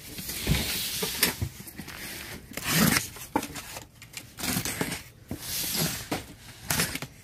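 Orange utility knife slitting the packing tape along a cardboard box's seams, with cardboard scraping as the box is handled. The noise comes in several separate strokes.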